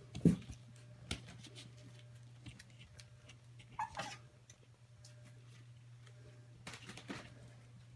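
Three-and-a-half-week-old puppies moving about, with a short high squeak about four seconds in and a few light scratches and knocks. A steady low hum runs underneath.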